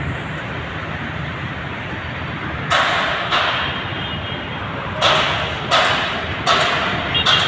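Street traffic with a steady low rumble. Three pairs of short, sharp hissing slaps rise above it, the two in each pair about two-thirds of a second apart.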